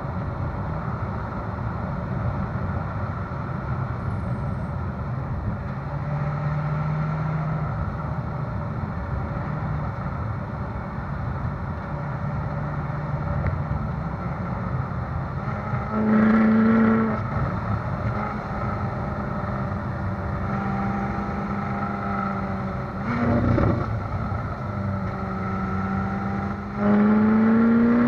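Ferrari California's V8 exhaust at light, steady cruising revs under a constant rumble of tyres on a rough road surface. It is heard from a camera mounted on the car's rear. About halfway through and again near the end the engine note gets louder under acceleration, and at the very end its pitch climbs as the revs rise.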